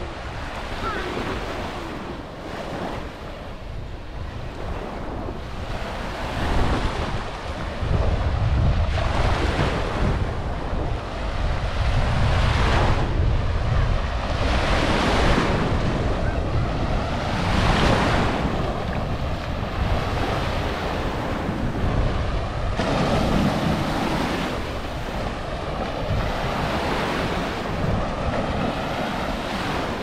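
Small ocean waves breaking and washing up onto a sandy shore, the surf rising and falling every few seconds, with wind rumbling on the microphone.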